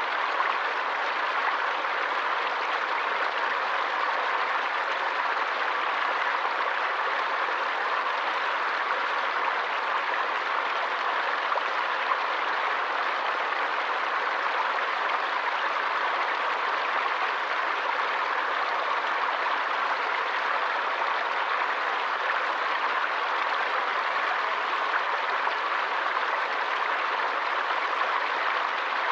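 Forest stream water running and splashing, a steady unbroken rush.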